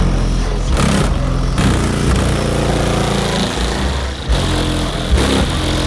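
Car engine running loud through its exhaust, with a deep low drone whose pitch shifts as it is revved.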